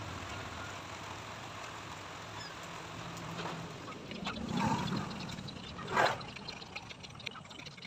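Small carving knife shaving wood by hand: a few short scraping cuts in the second half, the loudest about six seconds in, over a steady low background hum.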